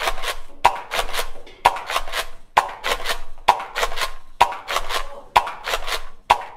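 Nerf blaster firing foam rounds one after another, about one shot a second: a sharp snap each time followed by a brief clattering rattle.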